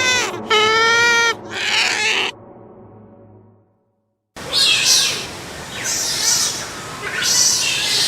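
Otters calling: a few high, drawn-out pitched calls in the first two seconds, fading to a moment of silence, then rougher, high-pitched squeaky calls repeating about every second and a half.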